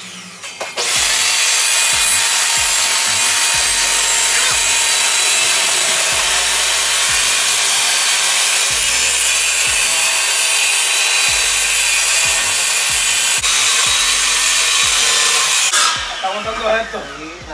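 Corded circular saw running and cutting through a thin white wall panel in one long, steady pass; the blade stops about a second and a half before the end.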